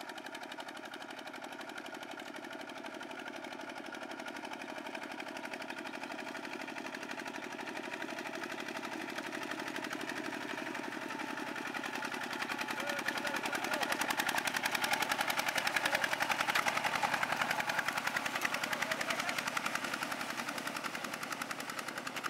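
Single-cylinder diesel engine of a two-wheel walking tractor chugging in a rapid, even beat while it drags a harrow through flooded paddy mud. It grows steadily louder as the tractor comes close, loudest about two thirds of the way through, then eases off a little near the end.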